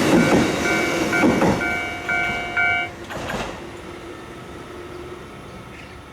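Japanese level-crossing warning bell ringing its electronic ding about twice a second over the rumble of a passing train. The bell cuts off about three seconds in, and the train noise then fades away.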